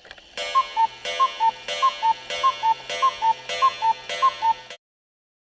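Cuckoo clock sound effect: seven two-note 'cu-ckoo' calls, each a higher note dropping to a lower one, about one and a half calls a second, then it stops.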